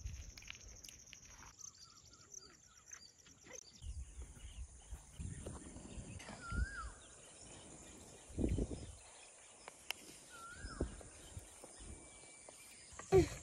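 Outdoor ambience: a bird gives a short whistled call twice, about four seconds apart, over a steady high-pitched buzz, with scattered low rumbles.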